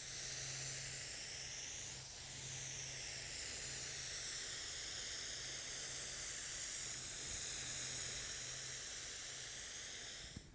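Gravity-feed paint spray gun hissing steadily as compressed air atomises primer surfacer onto a panel; the hiss stops at the end.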